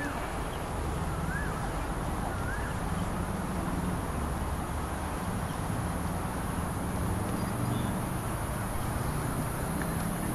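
Steady high-pitched trilling of evening insects such as crickets over a low rumble of city traffic. A few short rising-and-falling chirps come in the first three seconds.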